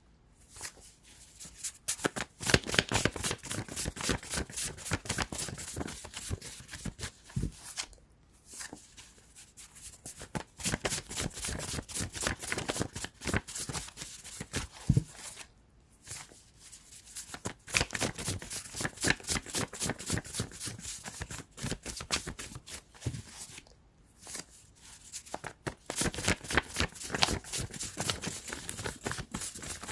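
A deck of cards being shuffled by hand: long runs of rapid card flicks and slaps in bursts, with a few short pauses between them.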